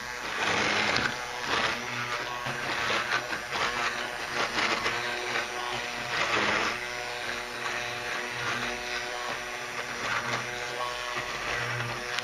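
Electric immersion blender running in a steel saucepan, puréeing boiled parsnips and onion in vegetable stock into soup: a steady motor whine over churning liquid, swelling and easing as the blade is moved through the pot.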